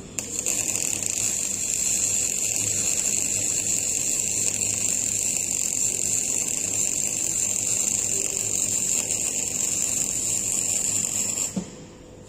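Electric welding arc on a steel pipe: a steady, loud sizzling hiss that begins with a brief strike, runs for about eleven seconds, then cuts off abruptly as the welder releases the trigger.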